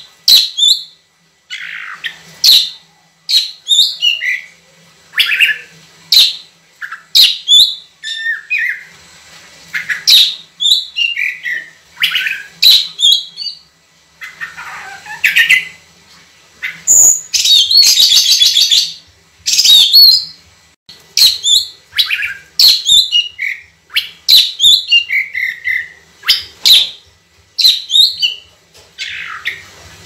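Oriental magpie-robin singing loudly in a long run of short, clear whistled phrases, about one a second, with a harsh, rasping stretch of about two seconds past the middle.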